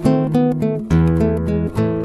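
Background music on acoustic guitar: a string of plucked and strummed chords, a new one every half second or so.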